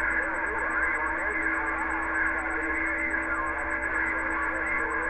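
A distant station's voice coming over a Galaxy Saturn radio's speaker, distorted and mixed with static, with a steady low tone under it.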